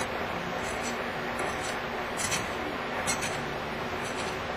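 A hand file scraping the cut ends of heavy solid copper wire to clean them up: a few short, irregular scratching strokes over a steady background hiss.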